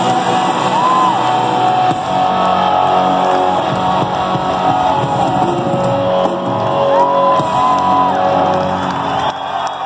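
Rock band playing live in concert, with electric guitar over drums, recorded from among the audience.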